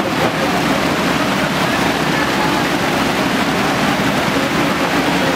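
Muddy floodwater rushing steadily, with the low hum of a JCB backhoe loader's diesel engine running.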